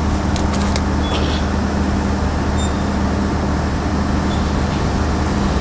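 Steady street traffic noise with a low, even engine hum, as motorbikes and cars pass on the road; a few faint clicks sound about a second in.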